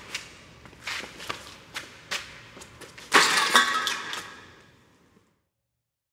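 Footsteps on a gritty concrete floor, walking off, then a sudden louder crash about three seconds in that dies away over about a second.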